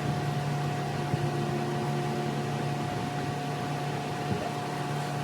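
Steady machine hum with a constant pitched tone over an even hiss, with a couple of faint light knocks.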